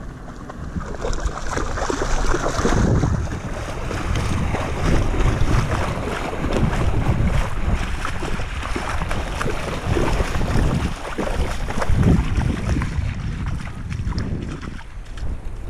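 Wind blowing across the microphone, with irregular splashing as a dog and a person run through shallow sea water.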